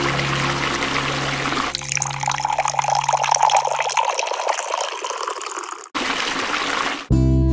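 Thin stream of water running from a miniature pump spout into a small plastic toy watering can, filling it. It cuts off abruptly about six seconds in.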